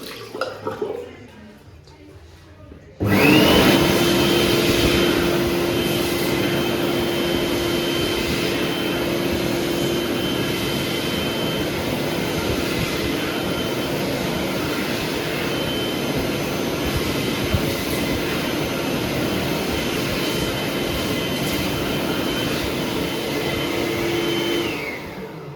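Kuaierte K7 (Heatstore Tornado Pro) hands-in hand dryer switching on suddenly about three seconds in. It runs steadily with rushing air and a steady motor whine over a lower hum for about twenty seconds, then winds down near the end.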